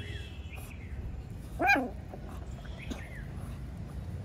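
A puppy gives one short bark about a second and a half in, over a steady low rumble.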